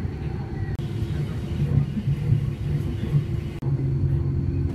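Steady low rumble of an electric commuter train running on the rails, heard from inside the carriage. It breaks off for an instant about three and a half seconds in, then carries on.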